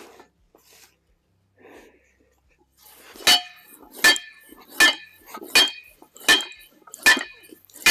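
Split Saw slide-hammer log splitter being driven: six sharp metal-on-metal strikes with a short ring, about three quarters of a second apart, starting about three seconds in, as the 30-pound slide hammer drives its wedge into the edge of an ash round to split off a section.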